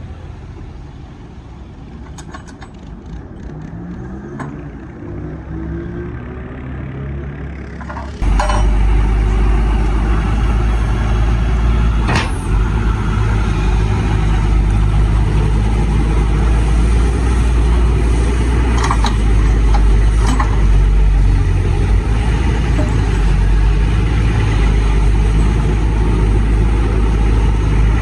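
Excavator's diesel engine running, its pitch rising; about eight seconds in, a hydraulic breaker on the excavator starts hammering hard rock and keeps on, loud and continuous.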